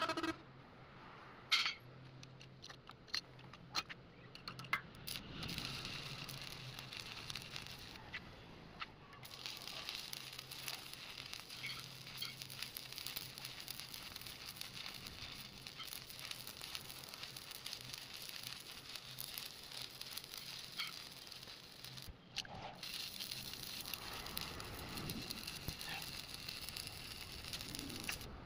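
Electric arc welding: a dense, steady crackling and sizzling of the arc that sets in about five seconds in after a few scattered clicks and breaks off briefly twice, with a low hum underneath.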